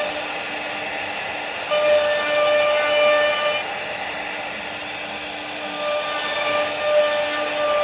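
CNC router spindle whining steadily as its bit carves wood. The cutting noise grows louder twice, about two seconds in and again about six seconds in, as the bit takes heavier passes.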